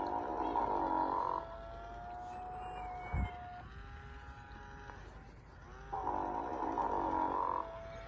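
Sing & Snore Ernie electronic toy snoring through its small speaker: a loud buzzy snore breathing in, then a long steady whistling breath out, the cycle starting again about six seconds later. A short thump comes about three seconds in.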